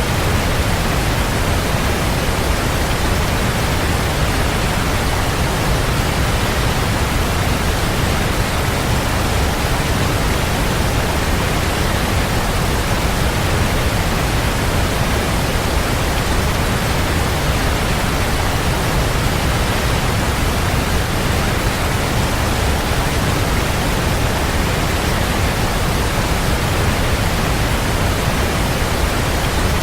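Waterfall: water falling and splashing in a steady, unbroken rush, heaviest in the low end.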